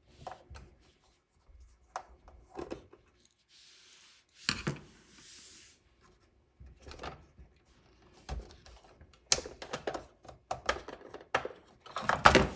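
Scattered clicks, taps and knocks from small parts being handled as the battery tray of a Huina 1582 RC dump truck is opened, with a brief rubbing hiss about four seconds in and a busier run of clicks near the end.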